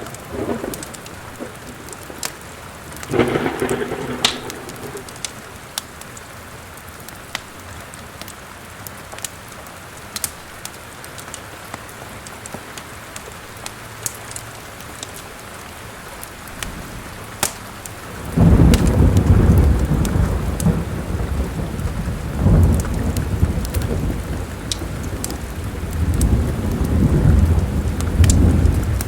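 Steady rain with the sharp pops and crackles of a wood fire, a short rumble a few seconds in, then a long, loud thunder roll from about two-thirds of the way in that swells twice more before the end.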